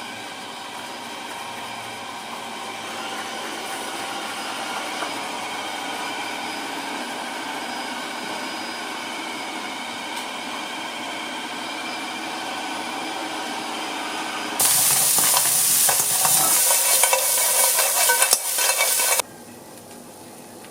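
Food sizzling in a hot frying pan as it cooks, with a steady hiss. About fifteen seconds in the sizzle turns much louder and harsher, then cuts off suddenly about four seconds later.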